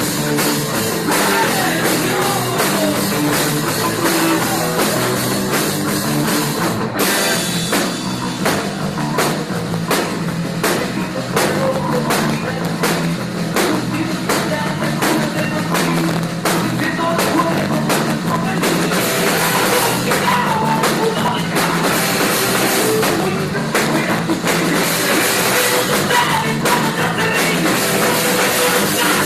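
Live rock band playing, with a driving drum kit beat and electric guitar, recorded on a phone.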